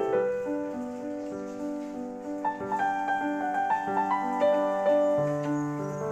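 Background piano music: a slow melody of held notes over a sustained lower note.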